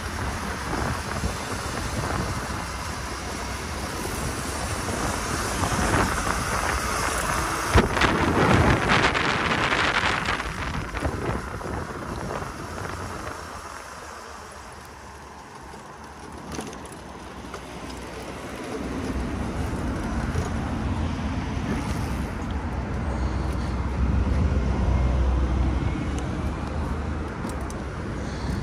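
Electric dirt bike being ridden off-road: wind rushing over the microphone with tyre and running-gear noise. The rush is loudest about eight seconds in, dies down a few seconds later, and picks up again with a low rumble in the second half.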